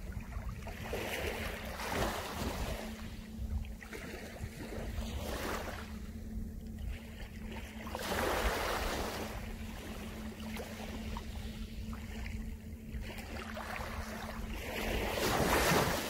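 Small waves of a calm sea washing up on a pebble beach: about five soft washes a few seconds apart, the largest near the end, over a steady low rumble.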